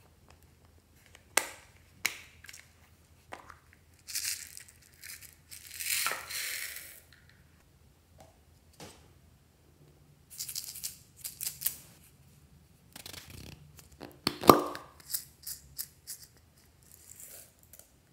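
Hard plastic toy casings handled by hand: scattered clicks, taps and rustling, with one loud sharp click about two-thirds of the way through as a pink plastic capsule is pulled open.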